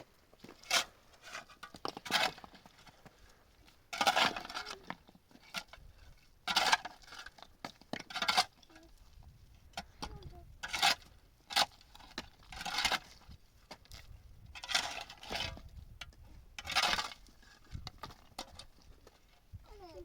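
A dozen or so irregular scrapes and clinks, each lasting up to about a second, with short gaps between them: hard objects being handled or worked.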